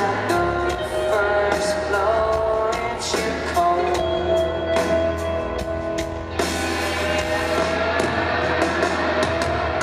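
Live pop-rock band playing: a sung vocal line with held, sliding notes over drum kit, bass and electric guitar, loud and amplified. The drum pattern changes about six seconds in.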